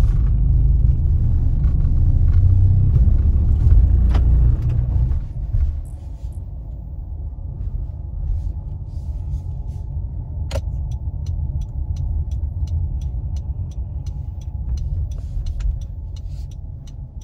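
Low road and engine rumble inside a Honda CR-V's cabin as it drives slowly. The rumble is loud for about the first five seconds, then drops. Through the second half there is a steady run of sharp clicks, about three a second, with one stronger click about ten seconds in.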